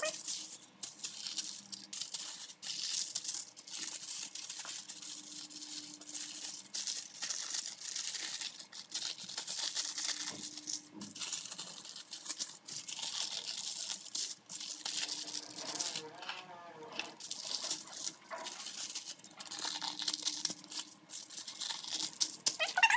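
Aluminium foil crinkling and crackling as it is folded and creased by hand, in stretches with brief pauses.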